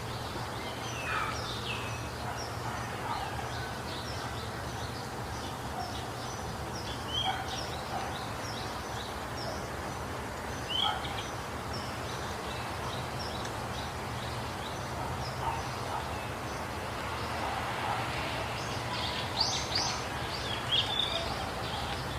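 Birds chirping and calling in short, high notes over steady low background noise, with the calls busier and louder near the end.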